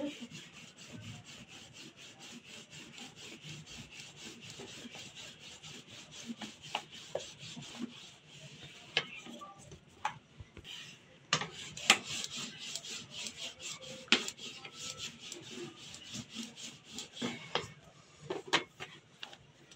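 Stainless-steel rolling pin rolling paratha dough flat on a stone counter: a repeated rubbing back and forth. A few sharp knocks come in the middle as the dough and pin are handled.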